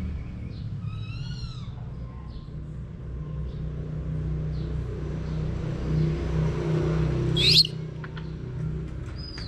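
Baby monkey giving a quick run of short, rising-and-falling squeaks about a second in, then one sharp, loud, high-pitched scream about two seconds before the end, over a steady low hum.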